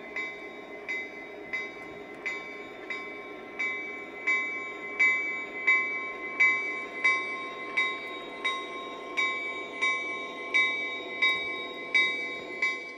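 Electronic bell of a Lionel SD70 model diesel locomotive's sound system ringing steadily, about one and a half strikes a second and growing louder, over the low hum of the model's diesel engine sound.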